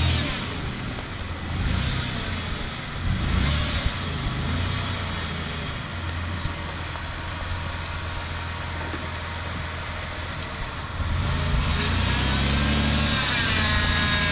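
Toyota Land Cruiser 90-series engine running low, near idle, as the truck crawls over rough ground. Near the end it grows louder, and its pitch swings up and down as the engine takes more throttle.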